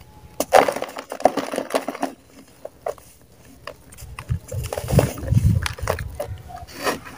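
Dry mud balls crushed by hand, crackling and crumbling, with loose powdery dirt sifting down into a plastic tub. Dull thumps come about five seconds in as the crumbled clumps drop.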